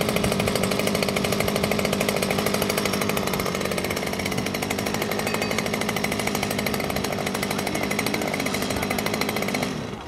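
Handheld petrol earth auger's small engine running at a steady speed, then cutting off just before the end.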